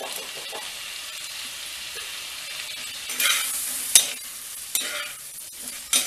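Sliced eggplant sautéing in oil in a clay pot, sizzling steadily. From about three seconds in it is stirred with a metal spatula: several scraping strokes, one with a sharp click just after the fourth second.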